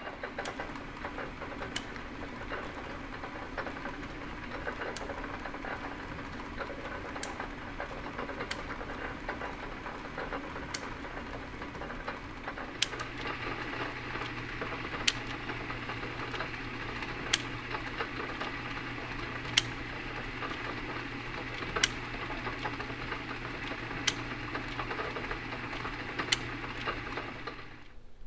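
Metal shaper running a finishing pass on steel: a steady machine running noise with a sharp click about every two seconds from the ratchet feed advancing the table once per stroke. A low fan hum joins about halfway through.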